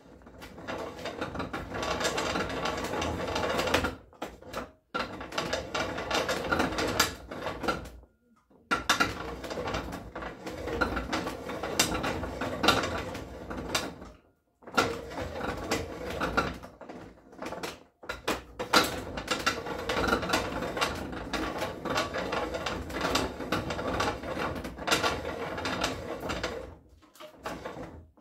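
Hand-cranked barrel-reaming rig at work: the reamer cutting and scraping the steel of a flintlock rifle barrel's bore, a rough, fast-ticking mechanical grind. It comes in runs of a few seconds with short breaks between.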